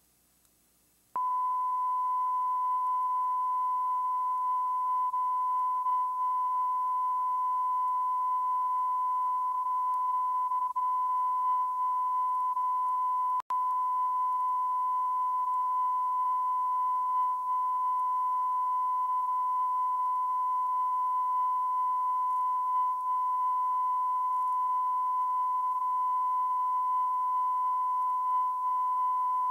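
Steady 1 kHz test tone recorded on a VHS tape. It starts about a second in and holds one unchanging pitch, with a split-second dropout midway.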